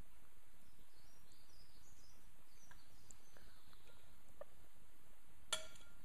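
One sharp clink about five and a half seconds in, a metal knife striking a plate or glass dish with a short ring, over a steady hiss with a few faint high chirps.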